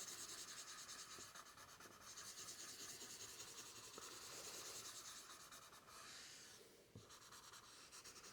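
Faint rubbing of a blending tool over graphite on drawing paper, in fast, even back-and-forth strokes, pausing briefly about two-thirds of the way through.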